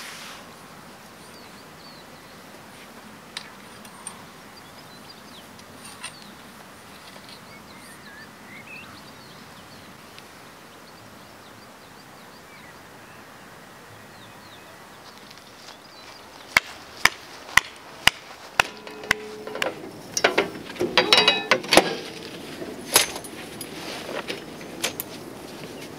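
Quiet open-air ambience with faint bird chirps for the first half. Then a run of about five sharp knocks, roughly two a second, followed by clattering and light metallic ringing as camping gear is handled, with a few more knocks near the end.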